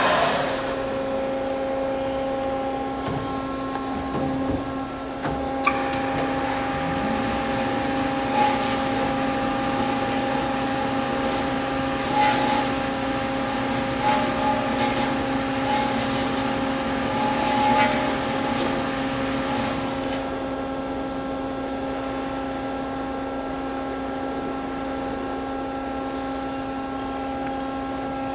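Behringer HPB-513A dual column automatic horizontal band saw running through its automatic cutting cycle: a steady machine hum throughout. A high thin whine joins about six seconds in and stops about twenty seconds in, leaving the hum running on.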